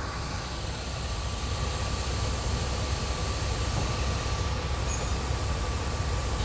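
Steady rushing and rumble of wheat pouring from a grain elevator loadout spout into a truck trailer, with a faint constant machinery whine, growing slightly louder.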